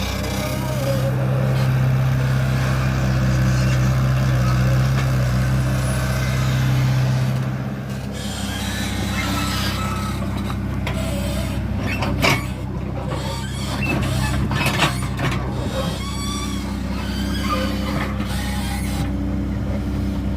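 Excavator's diesel engine running, held at a strong steady pitch under load for about the first seven seconds, then easing to a lower steady running with a few sharp clanks.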